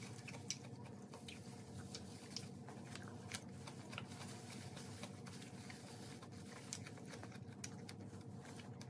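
Faint eating sounds: soft crinkles and ticks from plastic-gloved hands tearing bread and omelette, and chewing, with the food lifted to the mouth near the end.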